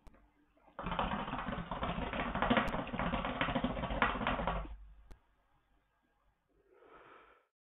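Hookah water bubbling and gurgling in the base for about four seconds as a long pull is drawn through the hose. A faint, short exhale follows near the end.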